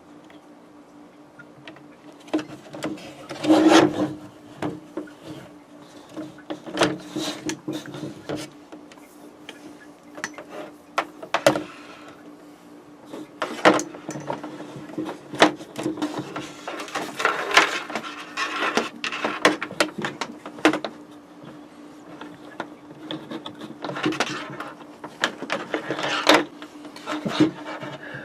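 Irregular clicks, knocks and rustling of wiring harnesses and plastic connectors being handled, over a steady low hum.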